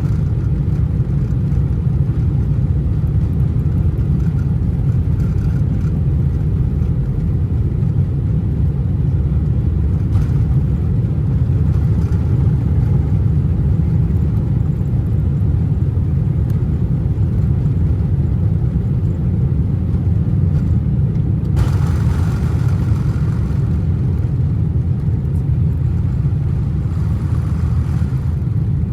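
Steady low rumble inside the cabin of a Boeing 747-400 with its engines running. A brief hiss rises over it about three-quarters of the way through.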